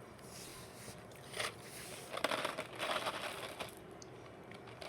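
Crinkling and rustling of a paper napkin and snack packaging being handled, in a few bursts, the longest from about two to three and a half seconds in.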